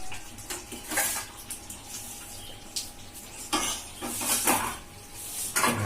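Metal cookware and utensils clinking and scraping in several short bursts.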